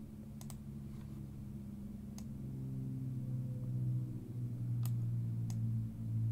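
A handful of sharp computer-mouse clicks, spaced irregularly, over a low steady hum that slowly grows louder.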